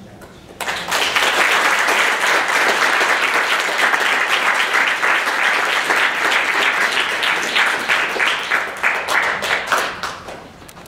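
Audience applauding, starting about half a second in and thinning to scattered separate claps near the end.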